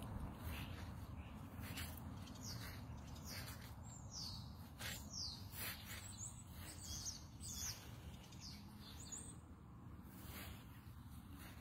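Small birds chirping, with many short high chirps that sweep downward in pitch, over a faint steady low rumble.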